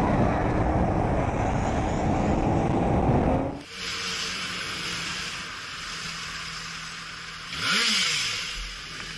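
Motorcycle riding noise from a helmet camera: loud engine and wind rumble while moving. About three and a half seconds in it cuts to a quieter hiss of slow traffic, and near the end the engine gives a short rev that rises and falls.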